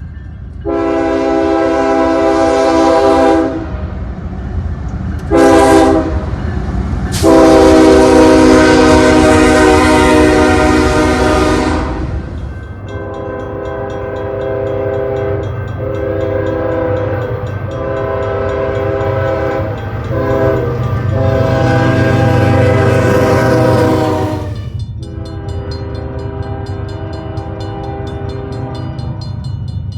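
First-generation Nathan Airchime K5HL five-chime locomotive air horn sounding a multi-note chord: a long blast, a short one, then a long, loud blast. Quieter, longer soundings with brief breaks follow, over a low train rumble.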